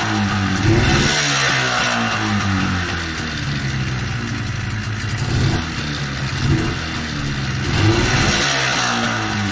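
Mariner 20 hp two-stroke tiller outboard running in a water test tank, mostly at a steady fast idle, with the throttle blipped up a few times so the engine briefly rises in pitch and level.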